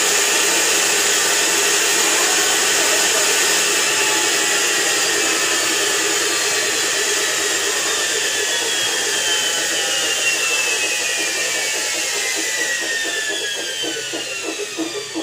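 Electrolux EWF984 front-loader's brushed motor spinning at high speed with a steady whir, its carbon-brush noise judged acceptable. Over the second half the whine slides down in pitch as it slows, and near the end a rhythmic pulsing sets in.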